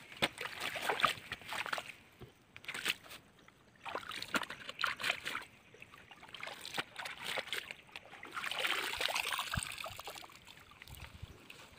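Pond water splashing and sloshing as a bundle of large green leaves is dunked and swished in it, in several irregular bouts, with a longer stretch of water running and trickling off near the end as the bundle is lifted out.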